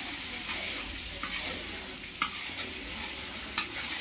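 Chicken frying in masala in a large kadai, sizzling steadily while a spatula stirs it, with a few sharp scrapes and knocks of the spatula against the pan.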